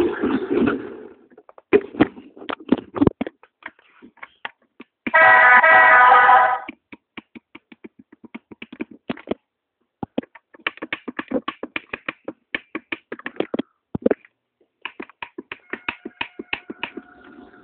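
Lego toy train wheels clicking over the track joints, a few clicks a second with short pauses, and a loud steady horn tone lasting about a second and a half about five seconds in. A low hum is heard near the start and again near the end.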